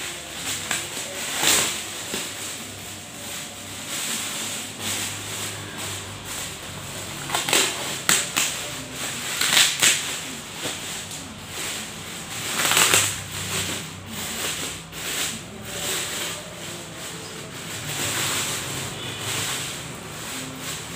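Plastic courier mailer bag crinkling and rustling as it is handled, in irregular bursts with a few sharper crackles.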